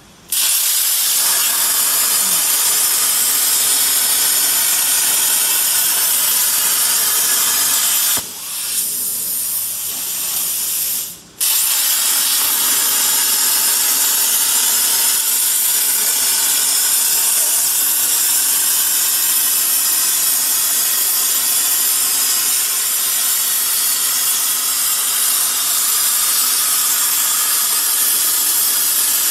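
CNC plasma cutter torch cutting steel plate: the arc strikes suddenly at the start and gives a loud, steady, hard hiss. About 8 seconds in it drops to a softer hiss for some three seconds and cuts out for an instant. Then it fires again at full strength and runs on steadily.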